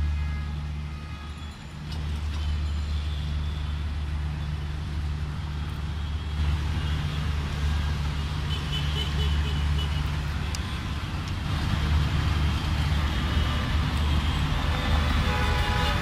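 Busy road traffic: a steady low engine drone throughout, with general traffic noise building from about six seconds in and a vehicle horn sounding near the end.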